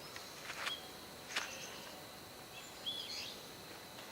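Faint open-air background noise with a couple of short bird chirps and a single faint knock about a second and a half in.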